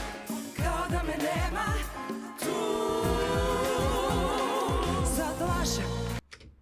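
A solo singer with vibrato over band accompaniment with a pulsing bass. The music cuts off suddenly near the end.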